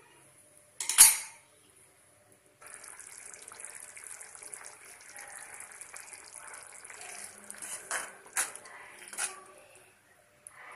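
Thick onion-tomato chutney simmering in a metal kadai, a steady bubbling, spluttering hiss with small crackles. There is a single sharp knock about a second in, and a few clinks of the spoon against the pan near the end as it is stirred.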